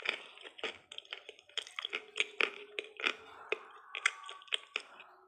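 Close-up chewing of a chocolate sweet, with many sharp, irregular clicks and crunches from the mouth.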